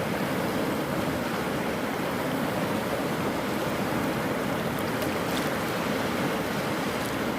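East Rapti River in flood, its water rushing in a steady, unbroken roar.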